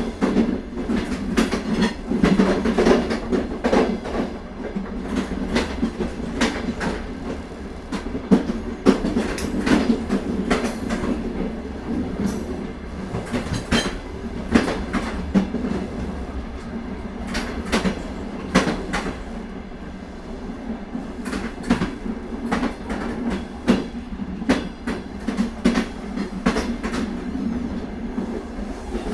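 Inside an old railway carriage under way: a continuous rumble of the running train, broken by frequent irregular clicks, rattles and knocks from the wheels over the rail joints and the loose fittings of the car.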